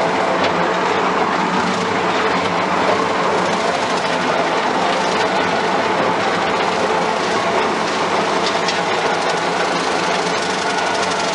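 Skid steer engine running steadily under load while it drives a hydraulic-motor mower deck cutting grass.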